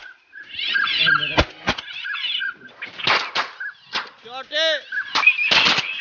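Shotgun fired twice in quick succession about a second and a half in, during a duck shoot. A short series of pitched calls follows a little later.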